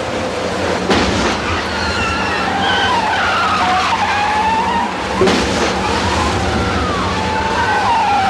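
Car tyres squealing again and again in wavering, sliding pitches over a steady engine rumble, with two brief louder rushes of noise, about a second in and about five seconds in.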